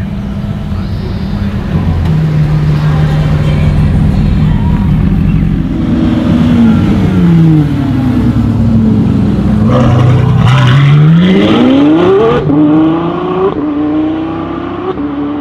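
Ferrari F12's 6.3-litre V12 through a Novitec exhaust, running low at first, then dropping in pitch and rising hard in a strong acceleration about two-thirds of the way in, before settling into a steadier, higher note as the car drives off.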